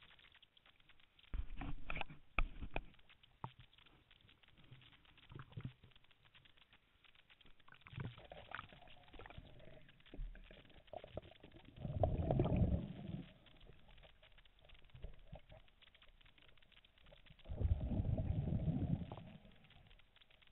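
Underwater: a diver's exhaled breath bubbling out of the regulator in low rumbling bursts of a second or two, three or four of them a few seconds apart, with faint crackling in between.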